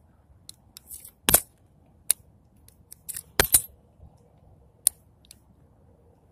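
Heritage .22 single-action revolver being unloaded by hand: a series of small, sharp metallic clicks, about half a dozen at irregular spacing, as the cylinder is turned chamber by chamber and the ejector pushes the cartridges out.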